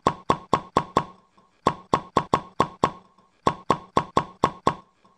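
A run of short, sharp plop-like hits, about four a second, in three runs with short pauses: splat sound effects for paint splashes landing in an animated logo.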